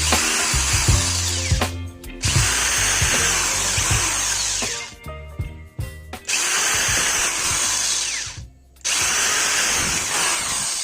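A power tool running in long bursts, cutting out briefly about 2 seconds in, again around 5 to 6 seconds in, and near the end.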